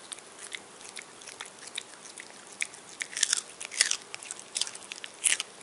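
A Maltese puppy crunching and chewing a whole raw carrot: irregular sharp crunches, loudest in clusters a little past the middle and near the end.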